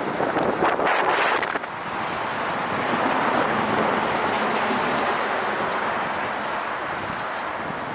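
Wind rushing over the microphone of a camera on a moving road bike: gusty buffeting for about the first second and a half, then a steadier rush that swells and slowly eases.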